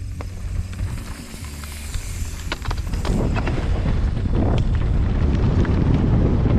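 Mountain bike clicking and rattling while being ridden down a trail. About three seconds in, a loud rush of wind over the microphone takes over.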